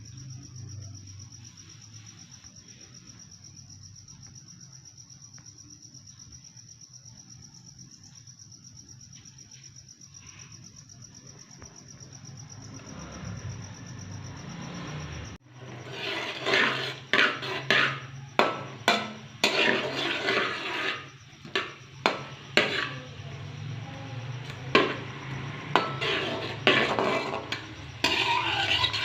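A faint, steady, high-pitched insect-like drone over a low hum. About halfway through it cuts off suddenly and is replaced by a utensil scraping and clinking against a cooking pot in irregular strokes as food is stirred.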